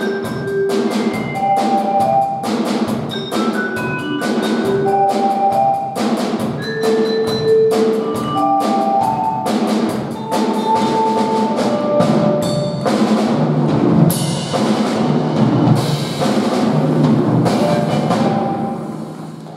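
Percussion ensemble playing: a drum kit keeps up a busy beat while mallet keyboard instruments play short ringing notes of a tune. The music dies away near the end.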